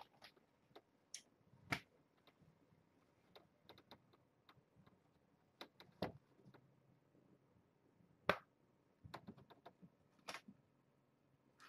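Faint, irregular light clicks and taps, four of them louder than the rest and spaced a couple of seconds apart, over near-silent room tone.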